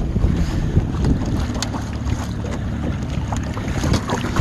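Small boat moving across choppy lake water: a steady low rumble with water noise, and wind buffeting the microphone.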